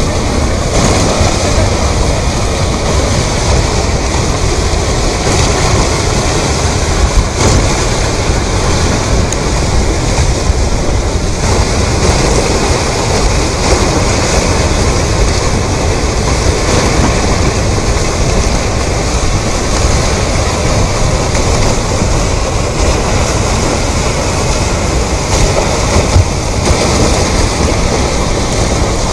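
Fast-flowing river water rushing, a loud, steady, unbroken noise with a heavy low rumble.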